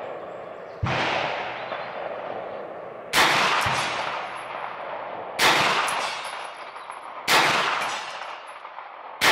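Five shots from a Hi-Point 995TS 9mm carbine, fired slowly about two seconds apart, each followed by a long echoing tail.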